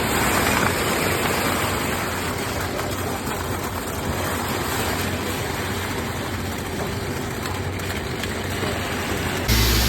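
Steady engine-type machinery noise with a broad rushing hiss over a low hum, changing abruptly to a different sound near the end.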